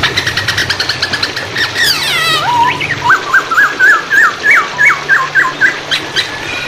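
Songbird singing: a rapid run of repeated notes, then a falling slide, then a string of short rising whistles at about four a second. It sings over a steady background of running water.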